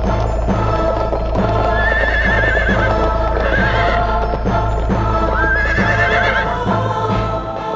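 A horse whinnying twice in long wavering calls, about two and five seconds in, over music with a steady rhythm of galloping hoofbeats.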